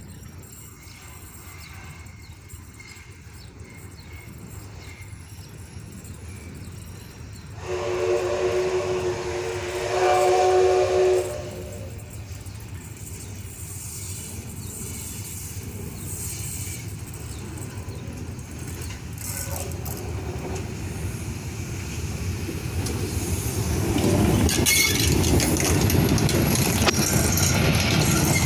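ČSD class 556.0 'Štokr' steam locomotive sounds its chime steam whistle in one blast of about four seconds, louder near its end. The locomotive then approaches and passes close by, its running noise growing to a loud, steady rumble of wheels and exhaust in the last few seconds.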